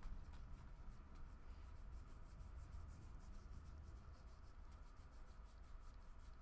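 Faint rubbing and light ticks of trading cards being handled and slid one over another, over a low steady hum.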